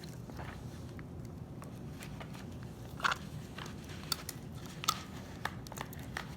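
Paper, tape and plastic bag being handled for a craft: scattered small crinkles and clicks, a few louder ones near the middle.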